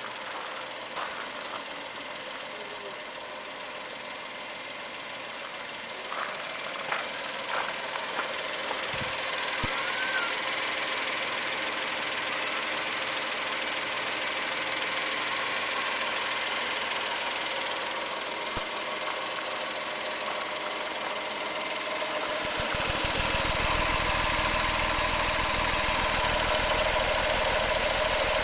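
Honda Acty mini truck's small three-cylinder engine idling steadily. About two-thirds of the way through it becomes louder and deeper, heard up close at the engine bay.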